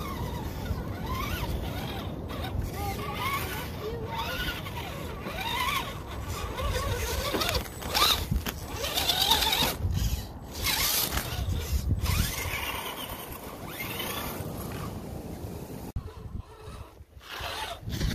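Electric motor and gears of an RC rock-crawler truck whining, the pitch rising and falling as the throttle is worked, over a steady low rumble. It is quieter for a moment near the end.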